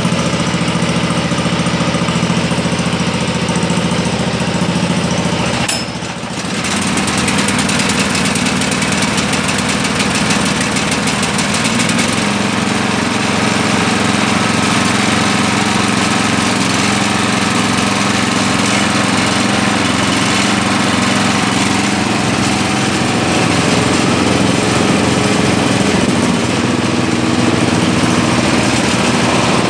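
Pull-start engines of Sears Suburban garden tractors running steadily while they warm up after a cold start, working fresh fuel into the carburetors. The sound dips briefly about six seconds in, then settles into a slightly different steady note.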